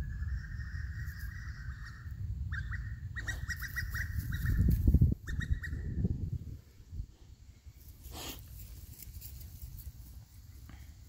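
A dog close to the microphone whining: one drawn-out high whine, then a run of short whimpers. Under it is a heavy low rumble that drops away about six seconds in.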